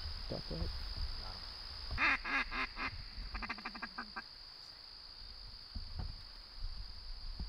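Ducks quacking: a run of about five loud quacks about two seconds in, followed straight away by a quicker run of short quacks.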